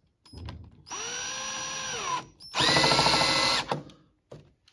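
Cordless drill with a socket spinning the screw of a car scissor jack, raising the rear of a motorcycle. The drill runs twice, about a second each, with a steady whine that drops in pitch as the first run slows. The second run is louder.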